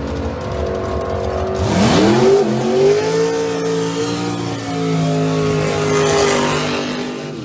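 A drag racer's engine making a test-and-tune pass. It rumbles low, then about a second and a half in it revs up sharply and holds at high revs for about five seconds before fading just before the end.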